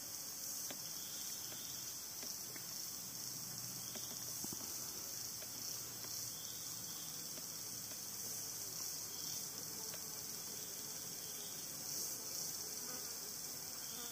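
Steady high-pitched chorus of forest insects.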